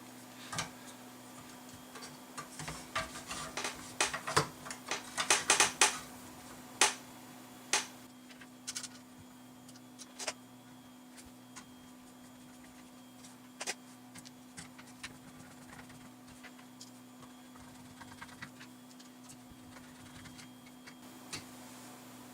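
Clicks and knocks of an 80 mm case fan being fitted into a bench power supply's metal case: a quick run of clicks in the first several seconds, then scattered single clicks, over a steady low hum.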